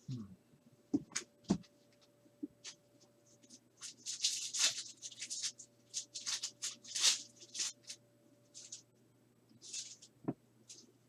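Plastic sports card packaging crinkling and tearing in a run of quick crackly bursts, with a few knocks from the box being handled in the first second and a half and another knock near the end.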